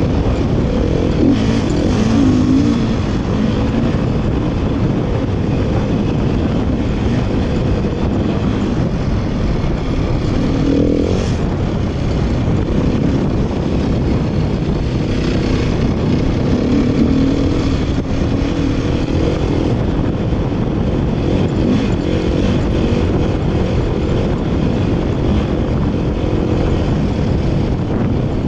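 Dirt bike engine running while being ridden along a trail, its note rising and falling as the throttle changes.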